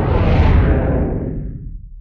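Logo sound effect: a deep whoosh over a low rumble that fades away over about two seconds.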